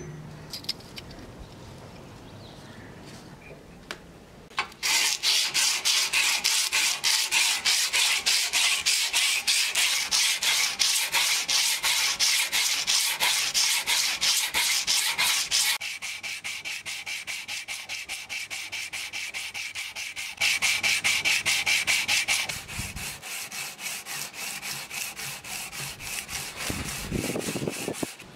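Steel sword blade being sanded by hand with a roll of sandpaper: quick, even back-and-forth rasping strokes that start about five seconds in. The strokes grow softer about halfway through, come back louder for a couple of seconds, then soften again.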